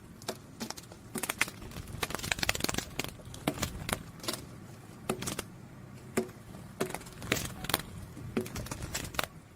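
Butterfly wings fluttering: irregular light papery clicks and rustles, several a second.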